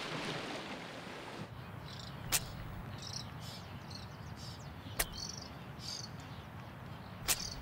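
Marine iguanas sneezing out salt from their nasal glands: three short, sharp puffs a couple of seconds apart, over a steady ambient hiss with faint high chirps.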